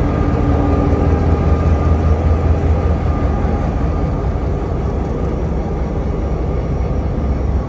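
CSX diesel-electric locomotive's engine running, a steady heavy low rumble heard close up from the locomotive's side walkway. It eases slightly about halfway through.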